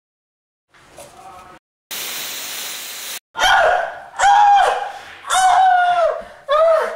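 An aerosol spray can hisses steadily for just over a second, then a man cries out loudly several times in short, high-pitched yells.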